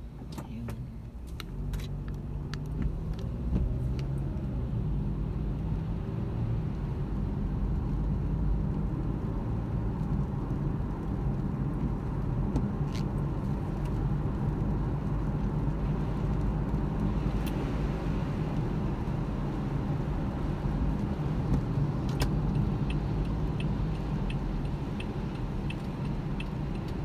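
Car cabin: engine and tyre noise on a wet road, building over the first few seconds as the car pulls away and then holding steady while it cruises. Near the end a turn-signal indicator starts ticking about twice a second.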